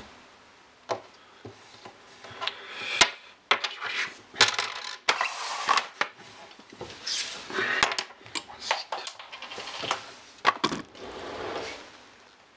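Small plastic lens parts and a clear plastic packaging tray handled and set down on a wooden table: scattered sharp clicks and clatters with stretches of plastic rustling between them.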